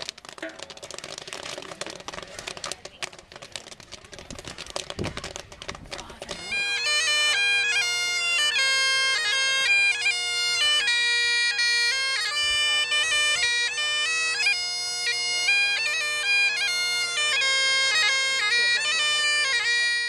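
Outdoor crowd noise with a few knocks for about six seconds, then Great Highland bagpipes start and play a tune over their steady drone.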